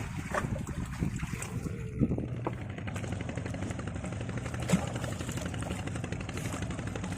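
Small boat engine running steadily with an even, rapid beat, and a few sharp knocks standing out over it.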